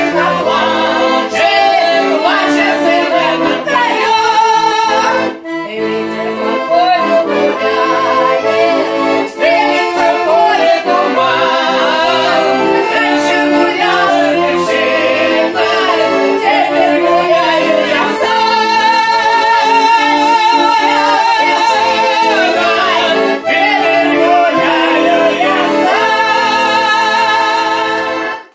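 Russian folk-style song: accordion playing with singing. The music stops abruptly at the very end.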